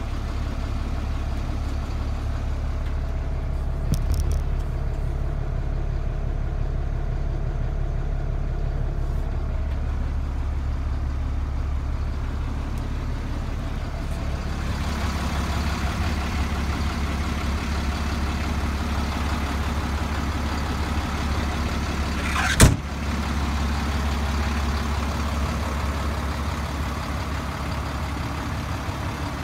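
Diesel truck engine idling steadily with a low hum, growing fuller and clearer about halfway through. About two-thirds of the way in, a single loud bang of the cab door shutting.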